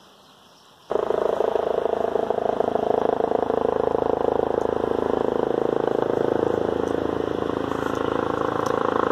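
Helicopter in flight, a steady engine and rotor drone that starts suddenly about a second in.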